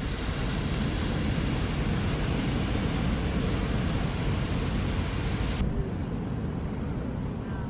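Steady ocean surf and wind noise buffeting a phone microphone at the shoreline, a rushing hiss over a heavy low rumble. About five and a half seconds in, the hiss drops away abruptly, leaving a duller rumble.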